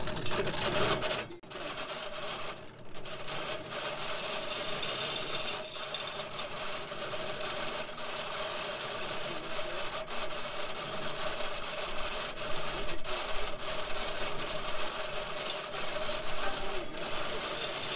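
Hand-cranked corn sheller being turned steadily, its mechanism grinding and rasping as it strips the kernels off an ear of field corn.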